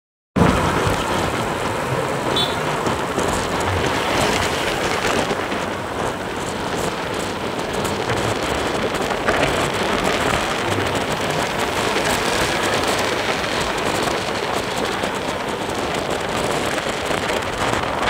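Steady rush of wind over the microphone mixed with tyre and road noise from riding along a road in traffic. It cuts in abruptly a moment after the start.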